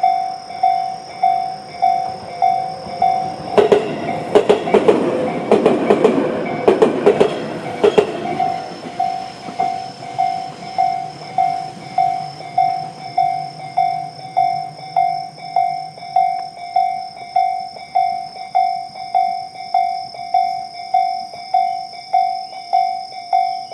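Japanese level-crossing warning bell, Tobu's slow-tempo 'type C' electronic tone, ringing steadily at about one and a half strikes a second. About four seconds in, a Tobu 20400 series electric train runs through the crossing for about four seconds, its wheels clacking over rail joints and drowning out the bell, which then rings on alone.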